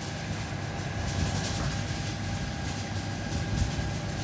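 Farmtrac 60 tractor's diesel engine idling steadily with an even low chug.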